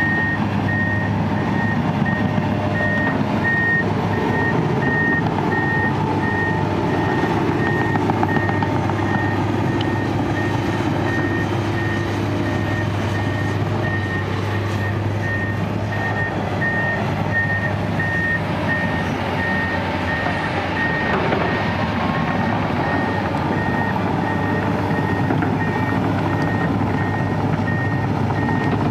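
Komatsu PC200 hydraulic excavator's diesel engine running steadily under digging load, with hydraulic and mechanical working noise, and a single-pitch warning alarm beeping evenly throughout.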